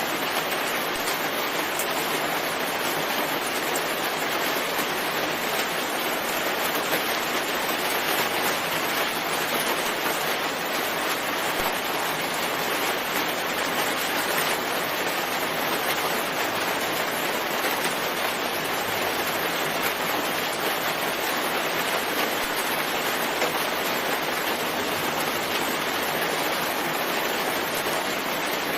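Steady rain, an even hiss with no breaks or changes in level.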